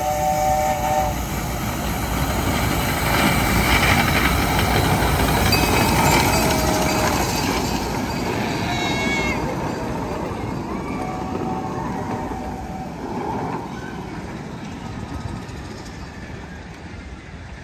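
The San Francisco Zoo's "Little Puffer" miniature steam train passes close by with its passenger cars, its wheels running and clattering on the rails. The sound swells as the train goes by and fades near the end. The locomotive's steam whistle sounds during the first second.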